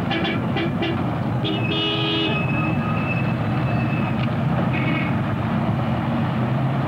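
Steady street traffic noise with several short vehicle horn toots and one longer thin horn-like tone in the middle.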